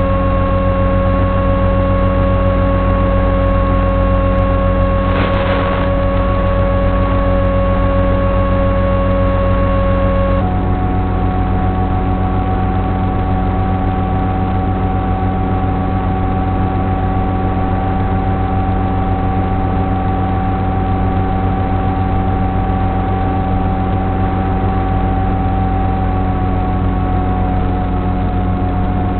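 Electric motor and propeller of an FPV flying wing running steadily, a droning whine over a noisy hum, with the pitch of one tone shifting about ten seconds in as the throttle changes.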